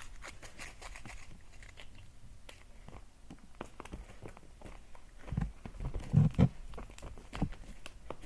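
Scuffling and light tapping as a cat and a child's hands play-fight on a fabric couch arm, with a few heavier thumps past the middle.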